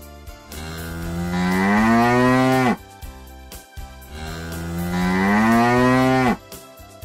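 Cow mooing twice: two long moos, each about two seconds, the pitch rising slightly through each call and dropping off at the end.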